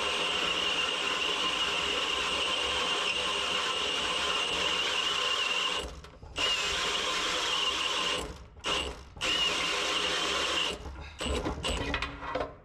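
Cordless drill boring a hole through a metal base plate, the motor running steadily under load with a high whine. It stops briefly about six seconds in and again around eight seconds, then runs in short stop-start bursts near the end.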